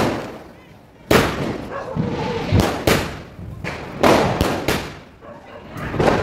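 Fireworks going off: a series of sharp bangs, roughly one every second or so, each trailing off in an echoing tail.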